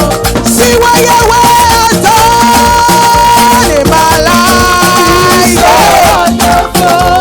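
Loud, upbeat praise-band music: an instrumental passage with a steady rhythmic beat and a held lead melody line.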